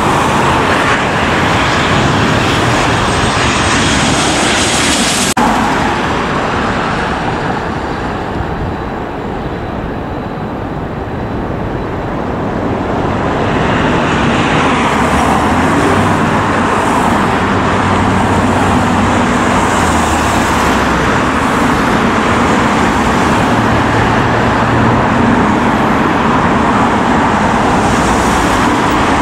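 Jet airliner engines on low final approach. A twin-engine jetliner runs at first; after a sudden cut about five seconds in, the noise dips, then builds again as a four-engine Boeing 747-8 comes in with its gear down.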